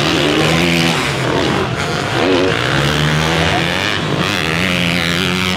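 Motocross bike engines revving hard on the track, their pitch repeatedly rising and falling as the throttle is worked on and off.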